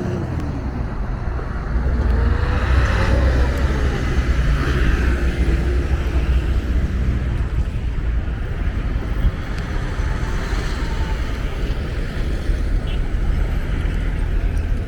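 Street traffic: engines of passing vehicles over a steady low rumble, with a pitch that rises and falls as vehicles go by in the first few seconds.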